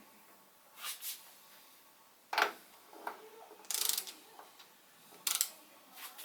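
Hand tools working on the engine: a few separate metallic clicks and a sharp clunk, with short rasping scrapes between them, like a ratchet or socket being worked.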